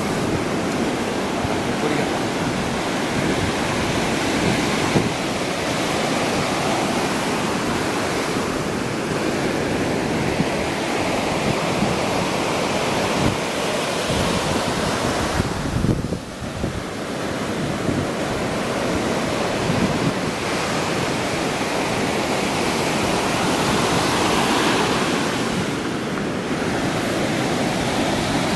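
East Sea surf breaking and washing on the beach, a steady rush of waves with wind buffeting the microphone; it eases briefly about halfway through.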